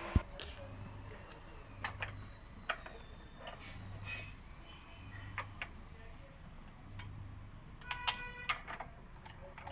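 Scattered sharp clicks and knocks of metal tools and parts being handled, with one ringing metallic clink about eight seconds in, over a faint hum that comes and goes.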